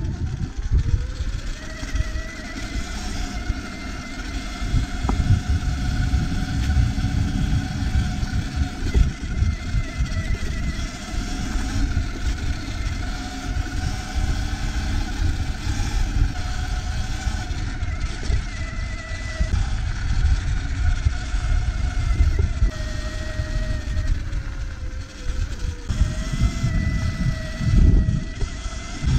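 Sur-Ron electric dirt bike's motor whining under way, the pitch rising as it picks up speed in the first couple of seconds, dipping and rising again near the end. A fluctuating low rumble from wind and the rough dirt track runs under it.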